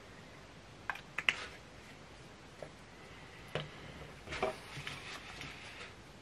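Handling noise at a fly-tying bench as a small super glue bottle and tying materials are handled: a few sharp clicks and taps about a second in, another tap and a cluster of clicks a little later, then soft rustling.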